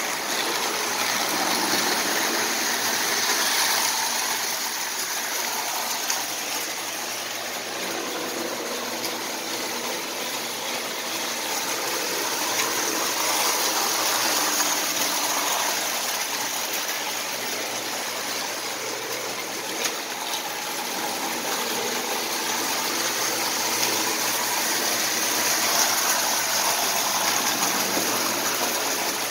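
Marx prewar tinplate toy train running on metal track: a steady rushing whir of the motor and wheels that swells and fades slowly as it circles the layout.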